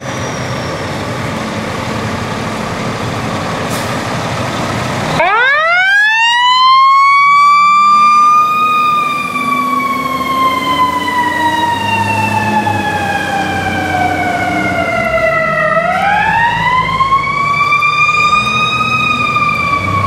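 Fire truck's mechanical siren, of the Federal Signal Q type. About five seconds in it winds up into a rising wail, then coasts slowly down in pitch for several seconds, and is wound up again near the end. Before the siren starts there is a steady rushing noise.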